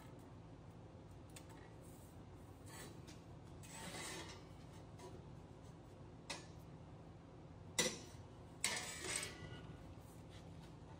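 Sheet-metal pieces of a 9-inch axle housing's rear cover rubbing, scraping and clinking on a steel table as their tabs are bent by hand: a soft rub about four seconds in, a sharp knock near eight seconds, then a short scrape and clatter.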